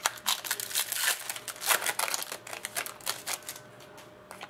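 Foil trading-card pack wrapper crinkling and tearing as a pack is opened, with the cards rubbing and sliding against each other; a rapid run of crackles that dies down about three seconds in.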